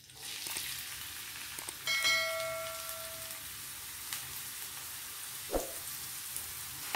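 Chopped onion frying in hot oil on a flat iron tawa: a steady sizzle. A bell-like chime rings about two seconds in, and there is a single short knock near the end.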